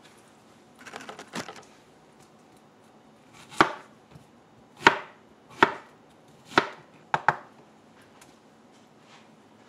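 Kitchen knife cutting strawberries on a plastic cutting board: a few soft clicks about a second in, then six sharp, irregular knocks of the blade on the board.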